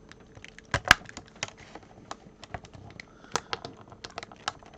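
A knife cutting into the hard plastic packaging of a Hot Wheels Premium die-cast car, the plastic giving irregular sharp clicks and snaps. The loudest snap comes about a second in.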